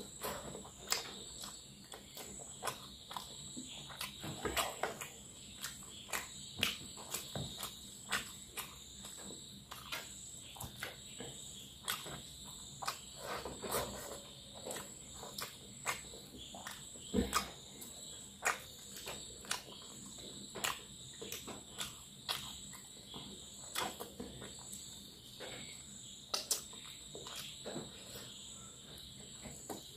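Eating by hand: rice and fish curry being mixed with the fingers and chewed with open-mouthed wet smacks, a steady stream of irregular clicks and squelches. A steady high insect trill, like crickets, runs behind it.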